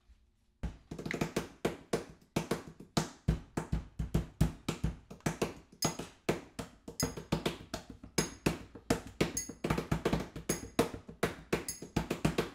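Hand percussion on a kitchen counter: quick, steady taps and slaps in a groove. From about six seconds in, a struck glass rings along with it.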